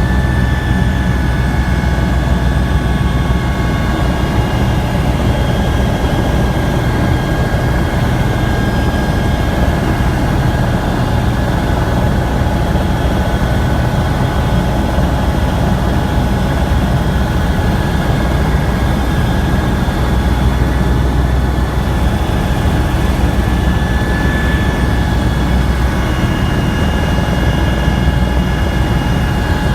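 Helicopter in flight, a loud, steady drone of engine and rotor heard from inside the cabin.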